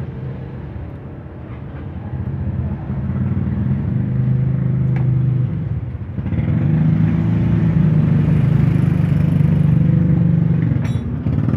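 Honda Vario Techno 110 scooter's single-cylinder four-stroke engine running steadily. It gets louder about a third of the way in and again about halfway through, and there is a light click near the end.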